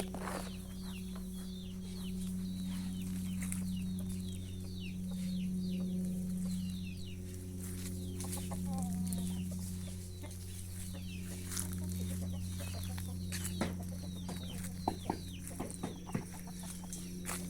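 Chickens calling, many short high falling calls in quick succession, over a steady low hum. A few sharp knocks come near the end.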